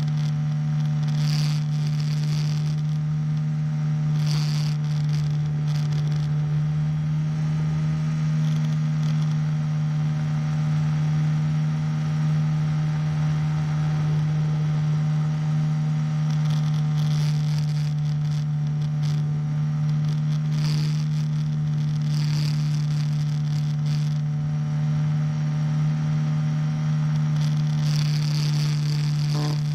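A powered hang glider's small single-cylinder engine and propeller drone steadily at one unchanging pitch in cruise. Short gusts of wind buffet the microphone every few seconds.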